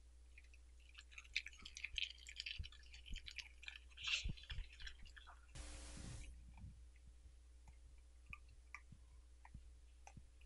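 A Welsh corgi crunching raw cabbage leaves, a quick run of crisp crackling chews for the first few seconds. A short hiss comes about halfway through, then only scattered small clicks of chewing as it takes more pieces from a hand.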